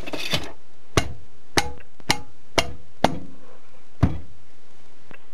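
A rubber mallet strikes the tips of the valve stems on a Land Rover 300 Tdi cylinder head: about seven sharp knocks roughly half a second apart, with a longer pause before the last, some leaving a brief ring. Each blow seats the split collets in their spring retainers so they cannot jump out later.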